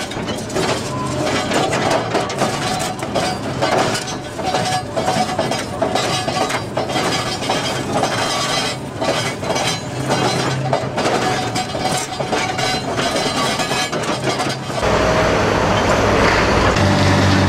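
Excavator-mounted hydraulic concrete crusher (pulverizer) crushing reinforced concrete: a dense, irregular run of crunching, cracking and clinking as concrete breaks and chunks fall. About fifteen seconds in it gives way to the steadier running of a demolition excavator, with a low engine hum.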